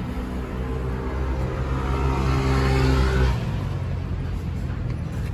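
Car engine running and accelerating, growing louder for about three seconds before dropping off suddenly.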